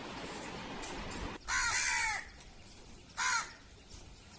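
Crows cawing: a long harsh caw about a second and a half in and a shorter one near three seconds, over a steady hiss that cuts off just before the first caw.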